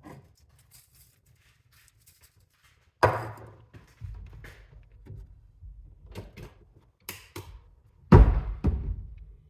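Things being handled and set down on a hard surface: a heavy thunk about three seconds in and a louder one near the end, with lighter clicks and knocks between.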